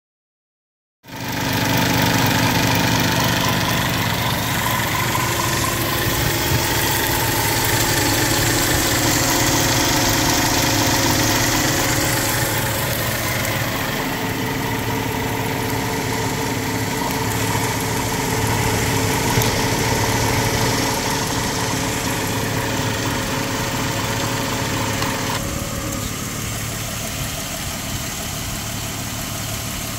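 Jeep Grand Cherokee WJ under the hood with the engine running and a newly fitted electric radiator fan motor running noisily: the new fan motor is faulty and sounds bad. The sound starts abruptly about a second in, and part of it drops away near the end.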